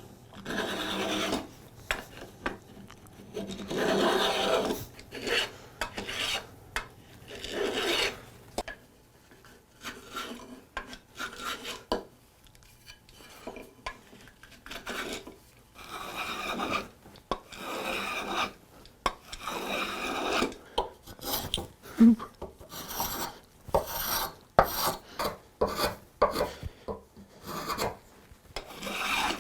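Hand tool worked in repeated strokes across quartersawn white oak chair parts, giving a rough scraping rasp with each stroke. Early on the strokes come a few seconds apart; later they come faster, mixed with short sharp knocks.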